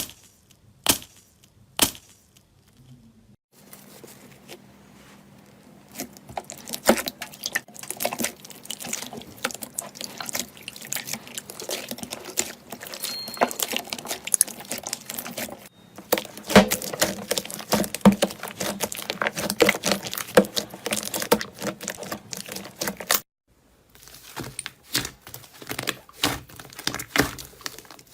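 Slime being squished, pressed and poked by hand: a dense run of small wet clicks and crackles, with a few single sharp clicks at the start, broken by abrupt cuts between clips.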